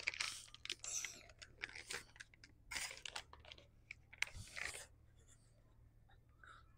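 Plastic snack bag crinkling in a quick run of short rustles as gummy peach rings are pulled out, fading after about five seconds to faint chewing as the candy is bitten.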